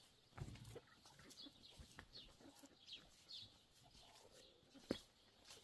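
Faint, short high bird chirps falling in pitch, repeated about every second, from the yard's fowl or small birds. A few soft knocks are mixed in, and a sharper knock about five seconds in is the loudest sound.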